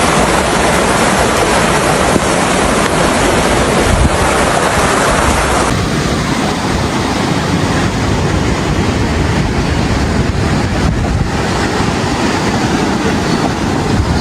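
Loud, steady rushing of fast-flowing floodwater, with wind on the microphone. About six seconds in the sound changes abruptly and turns duller.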